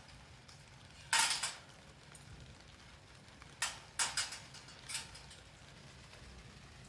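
Metal parts of a folding fire pit clinking and clattering as they are handled and fitted together: a short clatter about a second in, then several sharp clinks between about three and a half and five seconds in.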